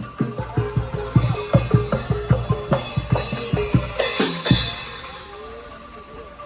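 Angklung band with drums playing an upbeat tune, the drum hits and pitched notes falling about three a second. The music stops with a final hit about four and a half seconds in, leaving a quieter background.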